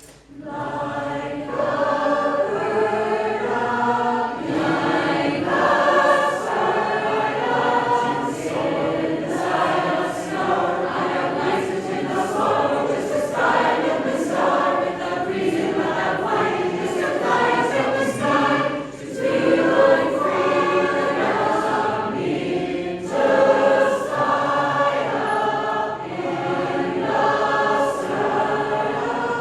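A choir singing in several voice parts. The singing begins just after the start and pauses briefly between phrases about two-thirds of the way through.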